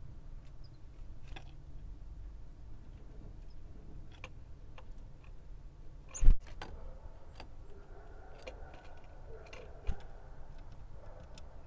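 Scattered dry clicks and taps of a great tit pecking and hopping on a wooden seed tray, with one sharp knock about six seconds in and a smaller thump near ten seconds.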